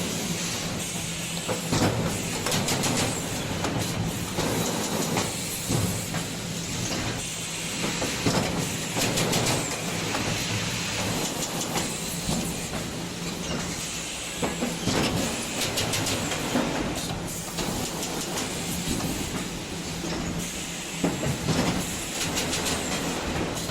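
Industrial machinery of a 3D wire-mesh panel production line running: a steady hum and hiss with irregular metallic clicks and clanks.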